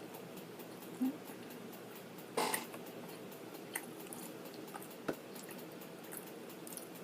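A person chewing and eating close to the microphone, with a few short wet mouth clicks and smacks; the loudest comes about two and a half seconds in.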